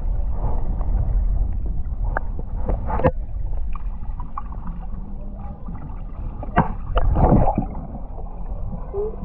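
Muffled underwater sound heard through a camera held below the surface beside a kayak: a low, steady wash of water with gurgles and a few sharp knocks, the loudest cluster about seven seconds in.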